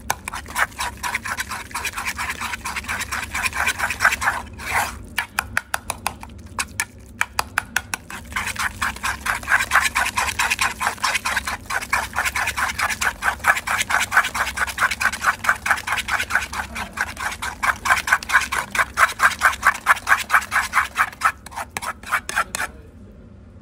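Metal spoon scraping and tapping rapidly inside a metal ladle as sheep's head meat and brain are mashed, several strokes a second with a few short breaks. It stops suddenly near the end.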